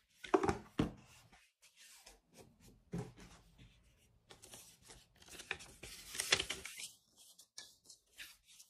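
Paper leaflets and a cardboard earbud box rustling and scraping under cotton-gloved hands, with a few light taps, in irregular bursts that are loudest about a second in and around six seconds, then die down near the end.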